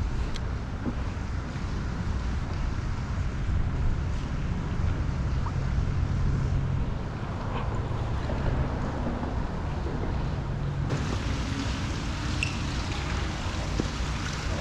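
Steady wind rumble on the microphone over open water, with water faintly lapping.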